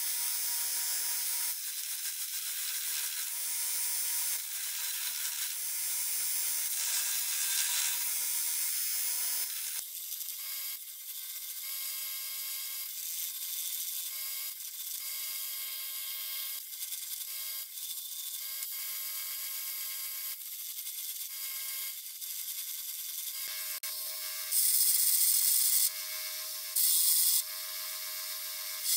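A power tool runs under load with a steady motor whine and a gritty, rasping hiss, in stretches with short pauses. The whine steps up in pitch about ten seconds in, and there are louder, harsher bursts near the end.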